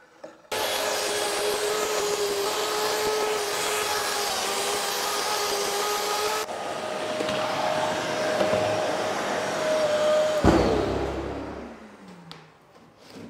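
Festool TS 55 track saw with a fine-toothed Freud blade cutting through a solid beech slab along a guide rail, with dust extraction running. The cut ends about six seconds in, the motor runs on freely at a higher pitch, then is switched off and winds down with a falling whine.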